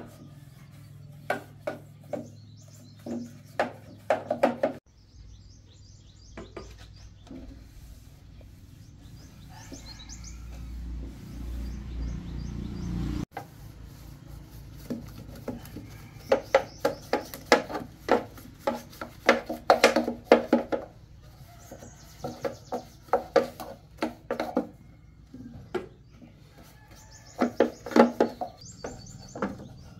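A metal hand tool scraping and knocking hardened concrete residue out of a concrete baluster mould, in quick runs of scrapes with pauses between. Birds chirp in the background, and a low rumble swells in the middle and cuts off suddenly.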